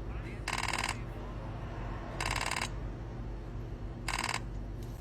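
Three short buzzing bursts, evenly spaced about two seconds apart, each lasting under half a second, over a steady low hum.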